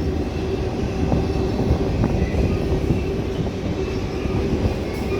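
Long freight train rolling past: a steady rumble of its cars' wheels on the rails.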